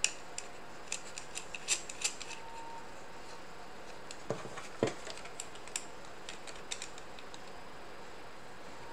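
Nuts being hand-tightened onto the threaded rods of a 3D-printed blaster attachment: light ticks and clicks of metal and plastic, with two louder knocks around the middle.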